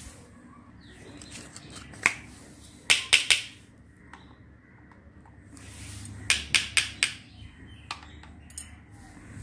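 Small hard-plastic toy pans clicking and clacking against plastic toy stoves as they are handled and set down: a single click about two seconds in, a quick run of four clicks about a second later, another run of five around six to seven seconds in, then a couple of lighter ticks.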